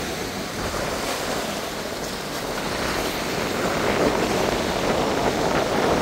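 Ocean surf washing in over a rocky shore, with wind on the microphone; the wash grows louder about halfway through.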